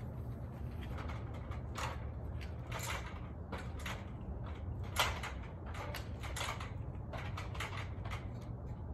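Aluminium extension ladder clanking and creaking under someone's feet as they climb it: a string of irregular knocks, the loudest about five seconds in, over a steady low rumble.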